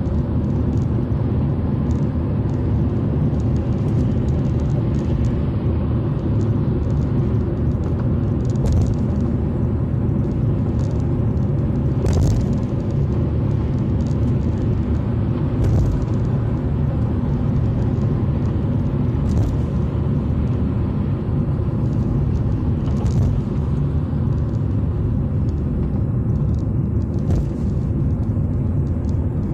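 Smart ForTwo 453 driving along, a steady low rumble of road and engine noise, with a few brief knocks every few seconds.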